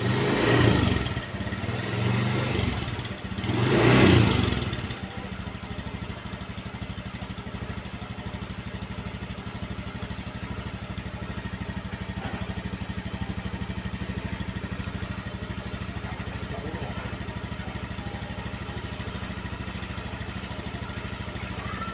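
Automatic scooter engine running, revved up and back down twice in the first five seconds, then idling steadily.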